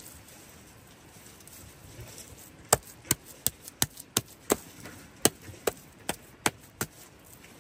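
A quick run of about eleven sharp knocks, two to three a second, starting a little before the middle and stopping shortly before the end.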